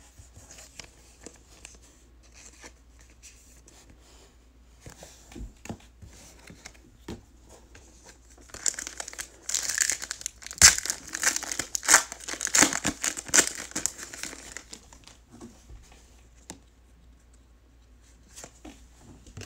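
A trading-card pack's wrapper being torn open and crinkled by hand: a few faint taps, then several seconds of crinkling and tearing about halfway through.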